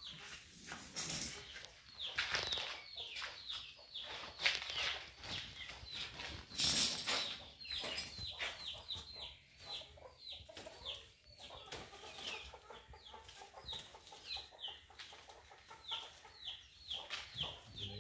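A flock of chickens calling: many short, high-pitched calls that fall in pitch, several a second, with a few louder rustling bursts in the first half.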